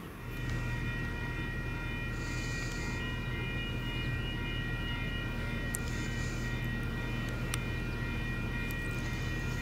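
A train running steadily at close range, giving off a steady high whine of several tones over a low hum, with a few faint ticks.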